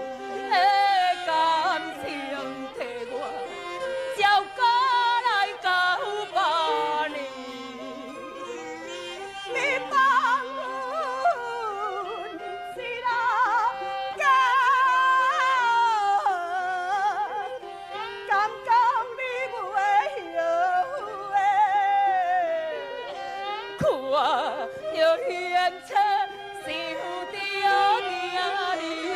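Taiwanese opera (gezaixi) singing, amplified through handheld microphones: a voice sings long phrases with sliding, wavering notes over steady instrumental accompaniment.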